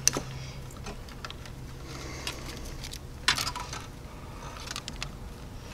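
Hands handling and rustling a bundle of engine-harness wires, with light clicks and a brief louder scrape about three seconds in, over a low steady hum that stops at about the same moment.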